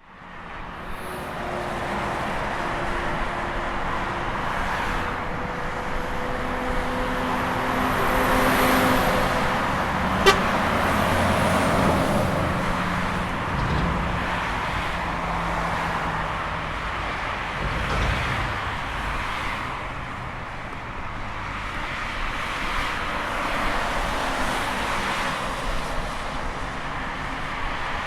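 Steady highway traffic: a continuous wash of tyre and engine noise, with vehicles swelling past one after another. A single sharp click comes about ten seconds in.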